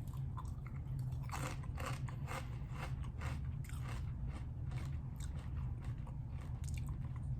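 A person chewing kettle-cooked potato chips close to the microphone, with many quick crunches. A steady low hum runs underneath.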